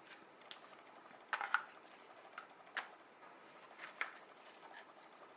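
Parts of a sliding puzzle box being moved by hand: scattered faint clicks and knocks as the panels and sliders shift, the loudest a short cluster about a second and a half in and single ones near three and four seconds.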